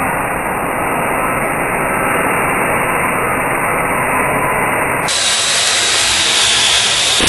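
Loud steady noise, muffled at first, turning to a brighter hiss about five seconds in.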